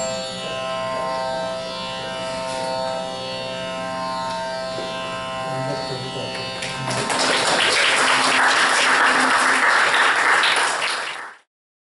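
The last sustained notes of a kirtan band ring out and fade. About seven seconds in the audience breaks into applause, louder than the music, and the sound cuts off abruptly near the end.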